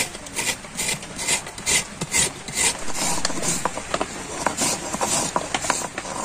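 Fresh coconut flesh being grated out of a half shell with a hand scraper: rhythmic rasping strokes, a little over two a second at first, then quicker, shorter scrapes in the second half.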